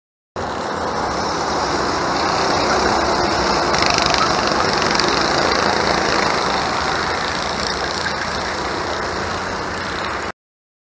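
Several go-kart engines running together on the track as a dense, steady blend of engine noise. It swells to its loudest about four seconds in as karts pass nearer, then eases off, and it cuts in and cuts off abruptly.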